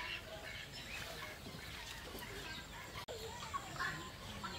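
Chickens clucking faintly, in short scattered calls.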